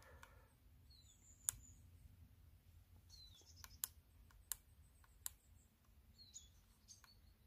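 Near silence with a low background hum, broken by several faint sharp clicks and, three times, a faint short falling bird chirp.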